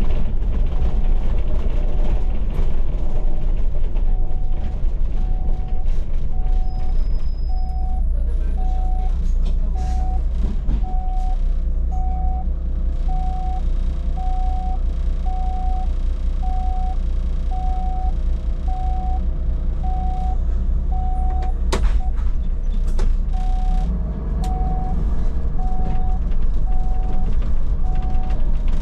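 Solaris Urbino 12 city bus interior: steady low engine and road rumble, with a short electronic beep repeating about once a second. The beeping pauses briefly about three-quarters of the way through, where there is a sharp click.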